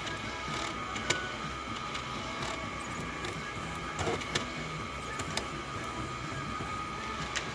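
Brother printer running, its mechanism giving a steady whir with a few sharp clicks scattered through.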